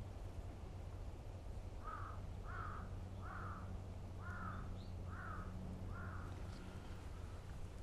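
A crow cawing, a run of six caws a little under a second apart starting about two seconds in, over a steady low background rumble.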